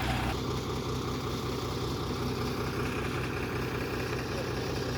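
A vehicle engine idling steadily with an even low rumble; the higher part of the sound eases off slightly about a third of a second in.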